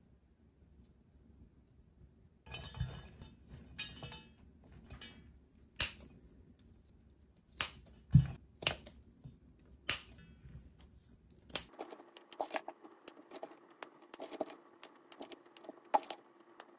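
Kitchen prep sounds: a series of sharp clicks and taps with light rustling, starting a couple of seconds in. Near two-thirds through, the background changes to a faint steady hum under quicker, smaller clicks.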